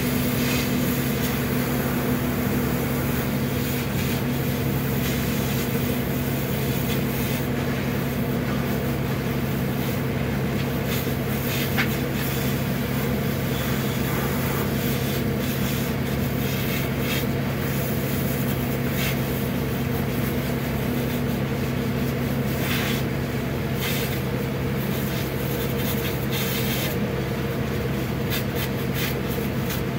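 Fire engine's engine and pump running steadily as a low, even drone, with the hiss of a fire hose spraying water and a few scattered clicks.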